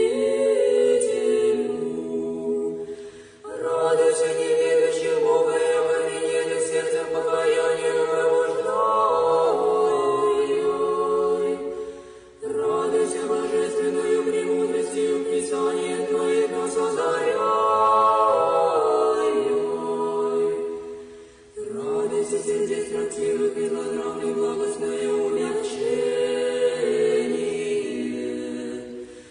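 Unaccompanied Orthodox church choir singing a slow chant in long, held notes, in four phrases, each ending in a brief pause for breath.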